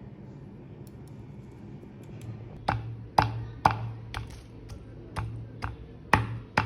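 A run of sharp kitchen taps about twice a second, starting a little under three seconds in, over a low steady hum.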